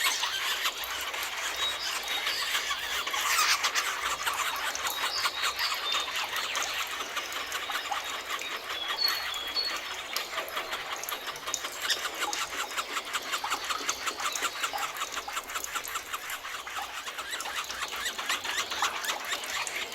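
Dense chorus of forest birds chirping and chattering in rapid short calls, with a few brief high whistled notes.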